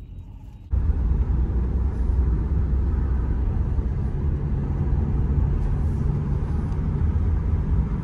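Steady road and engine rumble heard from inside a moving van, cutting in suddenly about a second in.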